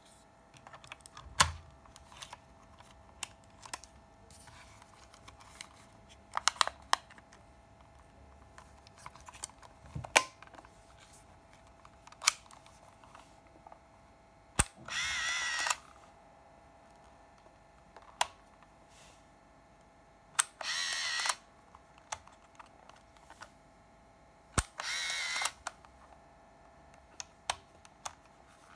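Canon Prima Junior S Macro compact 35 mm film camera being operated: scattered plastic clicks as the film is put in and the camera is handled, then three shutter releases about five seconds apart, each followed by about a second of motorized film-advance whirring.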